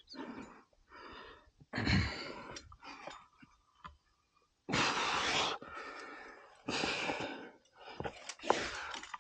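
A rock climber's heavy breathing under exertion: four long, forceful exhales about every two seconds, with a few faint clicks between them.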